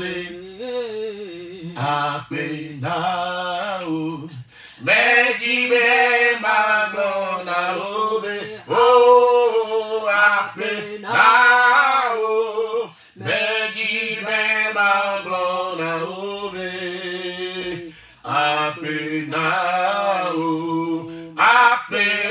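A man singing slow phrases of long held notes, with brief pauses between phrases.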